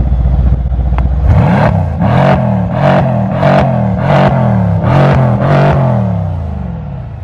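A 2016 Mercedes-AMG C63 S's twin-turbo V8 idles at standstill, then is revved in a quick series of about seven throttle blips, each rising and falling in pitch, before dropping back to idle. The car is in Sport Plus mode, its loud exhaust setting.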